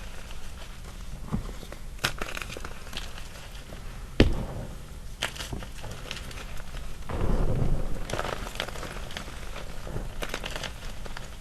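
Small chunks of gym chalk crushed by hand in loose chalk powder: irregular sharp snaps and crackles with soft handling noise under them. The loudest snap comes about four seconds in, and a longer run of crunching comes around seven seconds.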